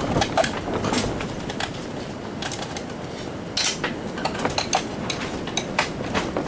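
Irregular metallic clicks, clinks and knocks of hand tools and loose metal parts as a garage door opener is dismantled, over wind rumbling on the microphone.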